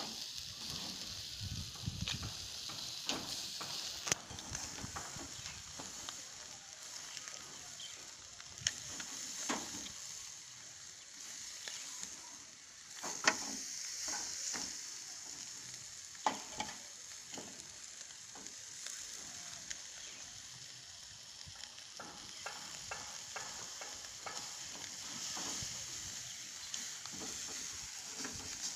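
Goat meat sizzling over charcoal on a wire grill rack, a steady high hiss. Scattered sharp clicks and knocks come from metal tongs on the rack as the meat is turned; the loudest is about halfway through.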